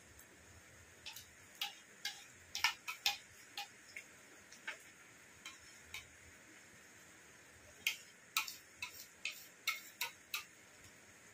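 Spoons clicking and tapping against plates as two people cut into and eat soft doi bora: irregular light clicks, coming in two clusters, one early on and one near the end.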